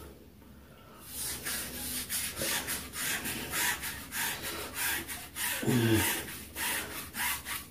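Bi-directional razor blades scraping through lathered scalp stubble in quick back-and-forth strokes, starting about a second in.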